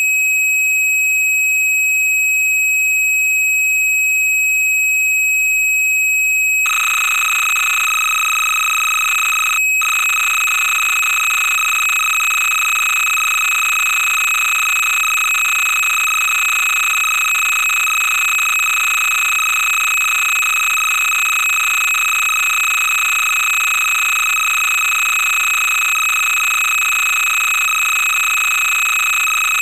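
TRS-80 PC-2 program data on cassette tape, heard as loud electronic tones. A steady high-pitched leader tone runs for about seven seconds, then turns into a harsher buzzing two-tone data signal, broken once by a brief gap a few seconds later.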